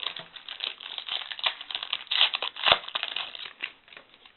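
Wrapper of a football trading-card pack crinkling and tearing as the pack is opened by hand, a dense crackle with its loudest snaps a little past halfway.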